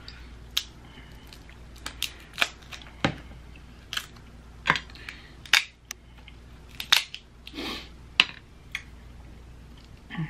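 Snow crab shell being cracked and picked apart by hand: a dozen or so sharp, irregular cracks and clicks.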